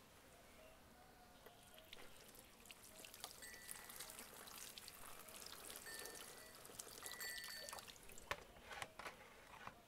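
Water poured from a plastic bowl over fresh green herbs in a pot, a faint splashing trickle as the greens are rinsed. A few light knocks near the end.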